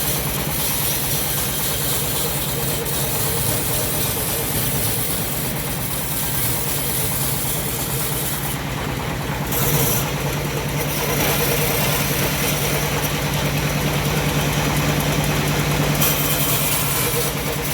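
Homemade engine-driven bandsaw running steadily through teak, with the engine's low beat constant throughout. The high hiss of the blade drops out briefly about nine seconds in and again near the end.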